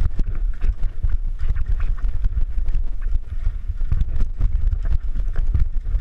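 Downhill mountain bike riding fast over a rocky trail: a continuous rumble with frequent rattles and knocks as the wheels and frame hit rocks and roots.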